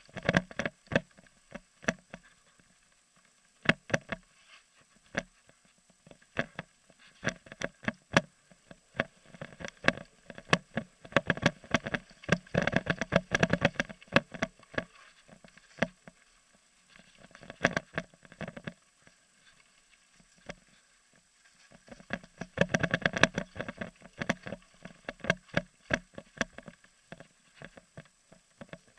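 Mountain bike clattering down a rough dirt trail: scattered sharp knocks and rattles over bumps, thickening into a dense clatter over two rough stretches, about a third and about three quarters of the way in.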